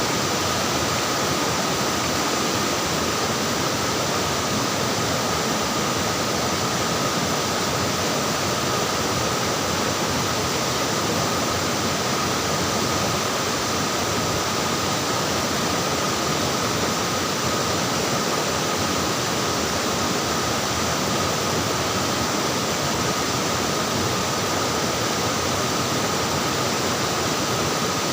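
Flowing water rushing and splashing steadily, an even unbroken wash of sound.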